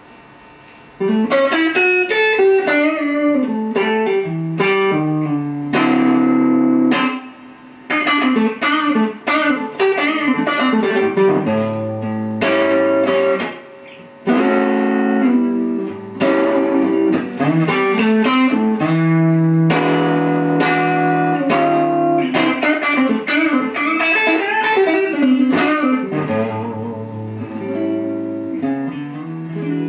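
Electric guitar with a split Seymour Duncan Little '59 neck pickup, played through a Mesa/Boogie Subway Rocket amp with Electro-Harmonix Holy Grail reverb. It plays blues lead lines with string bends and vibrato, mixed with held notes and chords, starting about a second in.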